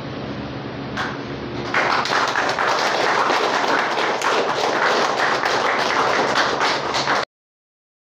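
A small group applauding: the clapping starts about two seconds in over a low steady hum and cuts off suddenly near the end.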